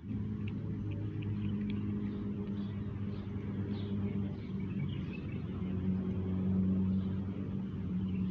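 A motor vehicle's engine running steadily at a constant low pitch, with a few faint light clicks over it in the first couple of seconds.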